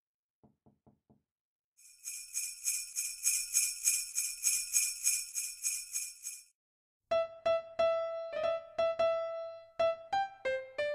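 Christmas music track: sleigh bells shaken in a steady rhythm for about four seconds, then electric piano notes starting about seven seconds in.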